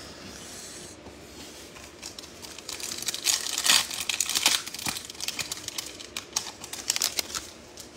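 Trading cards being handled, with crinkling and rustling and light clicks, busiest in the middle seconds.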